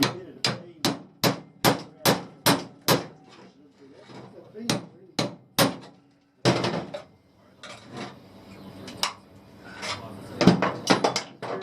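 Hammer blows: a quick, even run of seven strikes, about two and a half a second, then two single knocks and some irregular knocking and clatter near the end.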